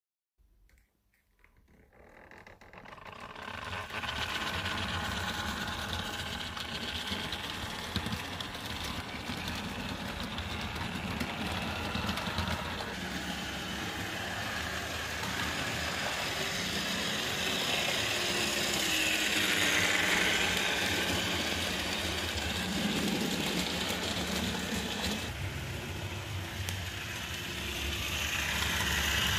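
HO-scale model trains running on the layout: a steady electric-motor hum with wheels rattling over the track. It fades in over the first few seconds.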